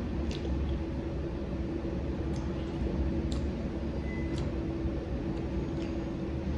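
Eating sounds: a fork clicking against a plate a handful of times while a mouthful is chewed, over a steady low room hum.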